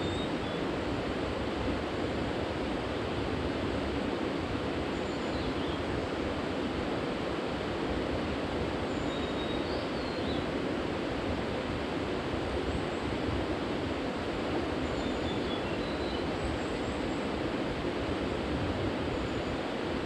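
Steady rush of a mountain river's flowing water, an even noise that holds unchanged throughout.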